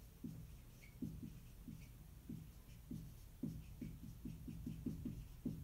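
Dry-erase marker writing on a whiteboard: a run of short, faint strokes, about two or three a second, each a brief falling squeak.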